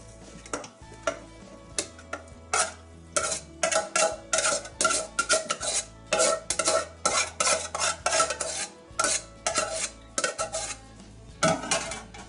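Metal spoon stirring boiled potatoes and cheese in a large stainless steel pot, clinking and scraping against the pot's sides in a quick, irregular series of strokes.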